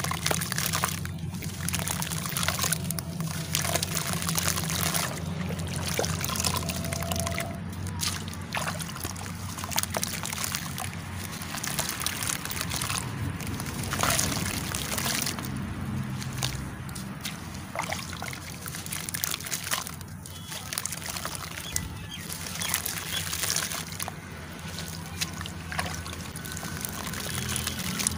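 Soaked charcoal-clay lumps squeezed and crumbled by hand in a tub of water: continuous sloshing and trickling, with many small crackles as the pieces break apart.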